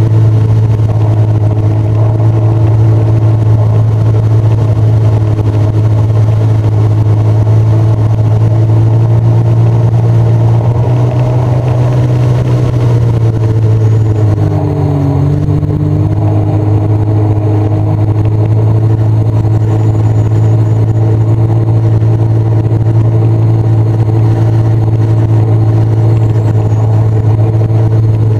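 Sea-Doo personal watercraft engine running steadily under way, a loud constant drone. About halfway through the engine note drops briefly and then climbs back up.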